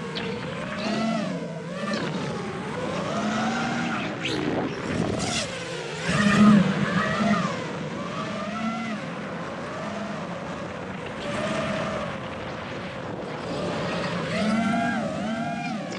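Brushless motors and propellers of a 5-inch FPV racing quadcopter whining, their pitch rising and falling constantly with the throttle, over the rush of air, as picked up by a GoPro mounted on the quad. A louder surge comes around the middle.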